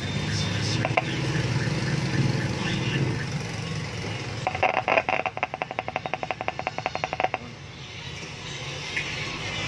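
Loudspeaker crackling from a repaired booster amplifier as its speaker lead is handled: a rapid run of sharp clicks, about fifteen a second for nearly three seconds past the middle, over a low steady hum.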